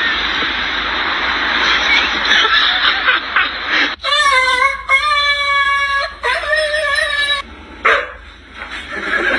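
A dog vocalizing: a noisy stretch first, then from about four seconds in a drawn-out call whose pitch wavers for roughly three seconds.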